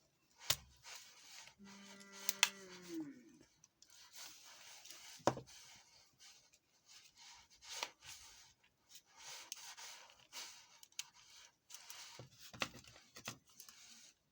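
Plastic housing of a Nokia 1174 feature phone being pried apart by hand: rubbing and scraping, with scattered sharp clicks.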